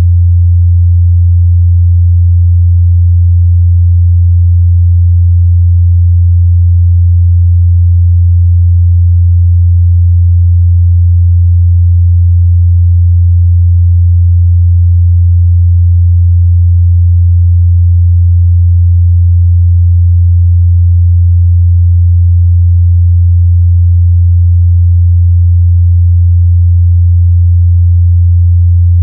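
Steady, loud 87 Hz sine-wave test tone, a single low hum held unchanged.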